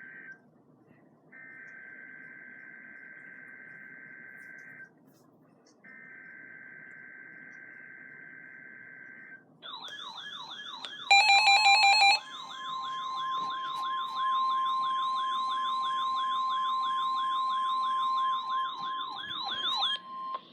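Three bursts of Emergency Alert System SAME header data from NOAA Weather Radio, each a steady two-pitched digital screech of about three and a half seconds with short gaps. Then an electronic alert siren starts warbling, a brief loud beep sounds, and the steady weather radio warning tone holds under the warble until just before the end. Together these signal an incoming severe weather alert.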